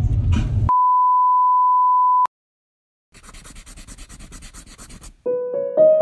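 A steady electronic beep at one pitch, held for about a second and a half and cutting off suddenly. After a short silence come faint, rapid crackling ticks, then music starts with a run of clear, ringing notes near the end.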